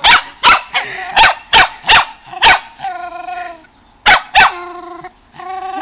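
Shetland sheepdog barking at another dog: a run of sharp barks, with longer whining cries between them around the middle and near the end. It is the wary barking of a dog that has become afraid of other dogs.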